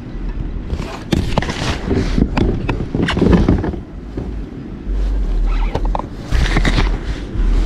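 Wind buffeting the microphone in low rumbling gusts, with several louder rough bursts of noise on top, out on a kayak on open water.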